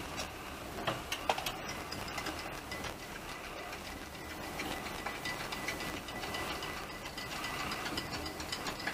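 Passenger train carriage running, heard from inside: a steady rumble scattered with small ticks and rattling clicks, a few sharper ones about a second in, and a faint thin whine held through the middle.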